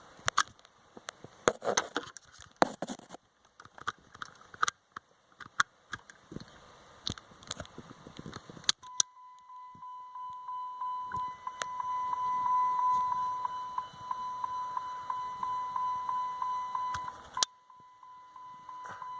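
Scattered clicks and knocks of the key and ignition being handled, then about nine seconds in a car's dashboard warning chime starts: a steady high beep pulsing about three times a second. Near the end a single sharp click breaks the chime before it carries on.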